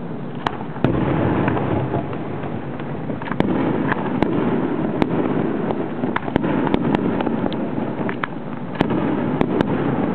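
Aerial fireworks display: a dozen or more sharp bangs and pops from shells bursting overhead, irregularly spaced, over a continuous noisy background.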